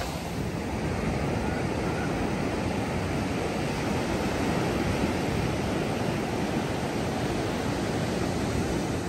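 Ocean surf breaking and washing up a sandy beach, a steady rushing noise with no let-up.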